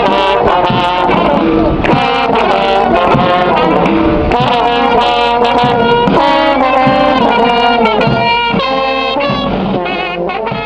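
Uniformed police brass band playing a march on trumpets and other brass, several notes sounding together in a moving melody, getting quieter near the end.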